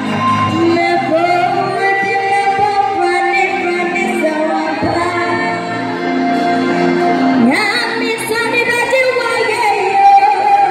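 Worship music with singing: voices holding long notes over instrumental accompaniment, with a rising sung glide about seven and a half seconds in.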